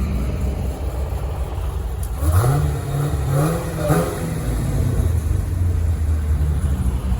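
V8 muscle car engine rumbling, then accelerating hard for about two seconds, its pitch rising in steps, before dropping back to a deep low rumble.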